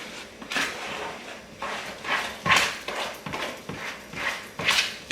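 Spoon stirring banana muffin batter in a mixing bowl: a run of uneven swishing, scraping strokes, about two a second.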